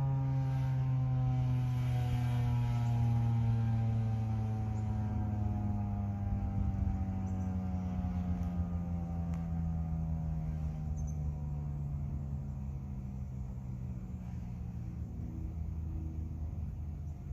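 Federal Signal 2001-SRN DC "Roundback" outdoor warning siren winding down after its 3-minute alert tone, its pitch sliding slowly and steadily lower as it fades.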